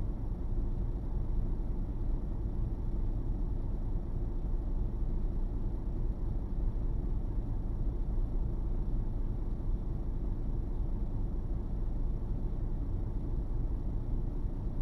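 Steady low rumble of a truck's engine heard from inside the cab while it sits in slow traffic.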